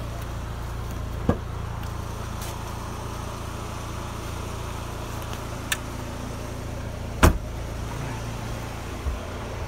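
Pontiac Solstice four-cylinder engine idling with a steady low hum, with a car door shutting once about seven seconds in, the loudest sound, and a few lighter clicks around it.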